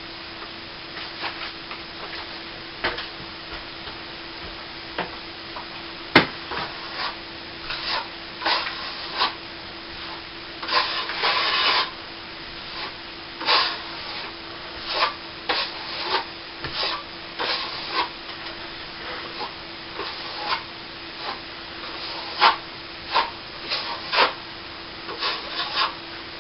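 Plastering trowel spreading and smoothing cornice cement over a plasterboard ceiling patch: short, irregular rasping strokes, one longer stroke about halfway through, over a faint steady hum.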